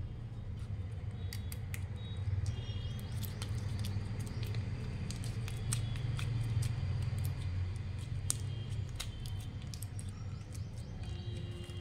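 Small plastic clicks and ticks of a toy capsule and a slime tub being handled and the glitter slime pressed through the tub, over a steady low hum, with a few brief high chirps now and then.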